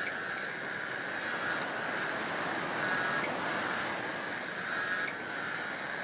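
Cicadas calling in chorus: a steady, unbroken buzzing drone with a high hiss above it, swelling slightly now and then.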